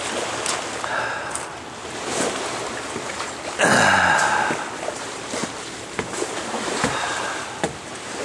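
Water splashing and sloshing as a dog wades and swims to cool off, with a louder rush of splashing about four seconds in.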